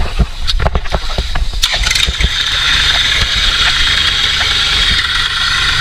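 Diesel tractor engine revved up hard under load in an attempt to drive a tractor out of deep mud. A few sharp knocks come first, then from about two seconds in the engine rises to a loud, steady high-revving run.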